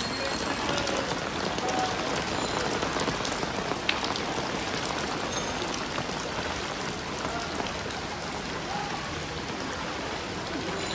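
Heavy rain falling steadily in a dense, even patter, with one sharp click about four seconds in.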